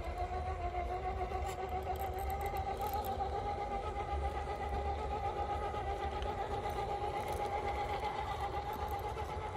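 RC rock crawler's electric motor and geared drivetrain whining steadily under crawling load, the pitch edging up a little near the start, over a low rumble.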